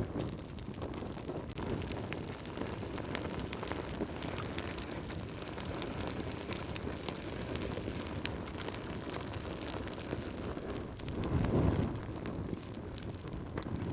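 Wood fire crackling in a fireplace: many small sharp pops and snaps over a steady low rush of flame, with a louder low whoosh about eleven seconds in.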